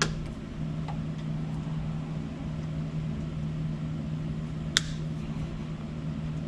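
Wire cutters snipping through the soldered leads on a power-steering unit's circuit board: two sharp snips, one at the start and one near the end. A steady low hum runs underneath.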